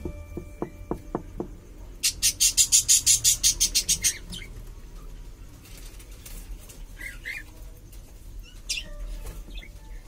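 Cockatiel calling: a loud, rapid rasping chatter of about a dozen notes, about seven a second, lasting some two seconds, followed later by a few short, separate chirps.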